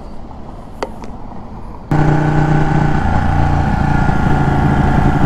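Ducati 1199 Panigale's L-twin engine, quiet under a faint low hum at first, with a sharp click near the start and another about a second in. About two seconds in a loud, steady engine note comes in suddenly as the bike rides along the road.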